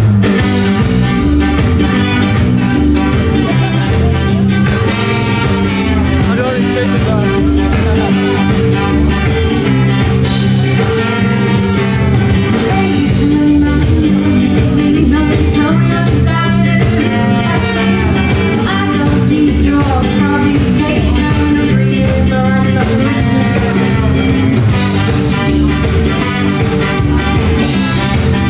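Live rock band playing loudly and continuously: electric guitars, bass and drums.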